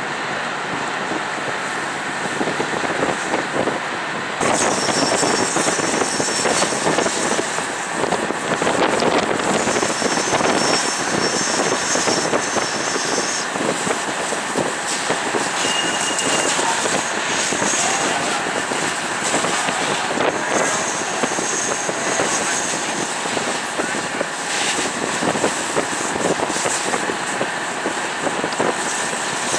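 Firefighting vehicle engines and pumps running with a steady rush. It gets louder about four and a half seconds in, with high whines coming and going.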